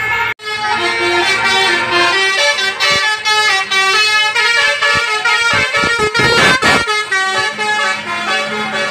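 Basuri musical air horn on a bus playing a tune: loud multi-tone horn notes stepping quickly from pitch to pitch, with a short gap just after the start and a warbling, swooping stretch about six seconds in.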